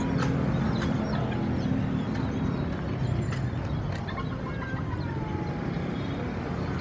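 Street market ambience: a steady rumble of road traffic, with caged birds chirping over it and a falling whistle about two-thirds of the way through.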